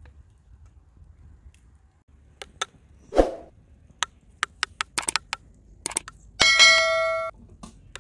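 Metal spoon and fork clicking and scraping against a metal serving tray and bowl, in a run of sharp clicks. Near the end, one loud metallic ring with several clear tones lasts just under a second and cuts off abruptly.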